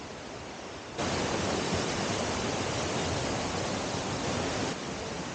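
Rushing water of a rocky stream: a steady hiss that jumps abruptly louder about a second in and drops back down just as abruptly near the end.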